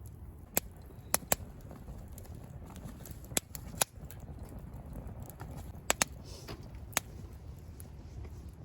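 Scattered sharp pops and crackles, about eight in all at uneven intervals, from a campfire grill, over a low steady rumble.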